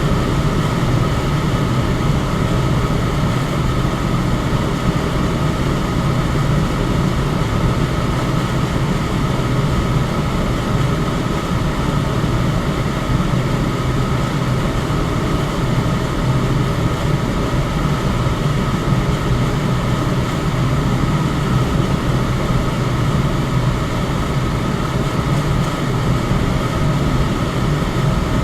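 Electric fan running steadily: an even, deep rush of moving air with a faint steady whine above it.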